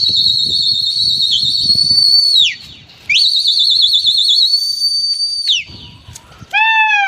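A pigeon flyer's loud, shrill human whistles: two long high blasts with a warbling trill, each about two and a half seconds, with a short break between them. These are the kind used to drive a flying flock of pigeons. Near the end comes a short, lower call that rises and then falls.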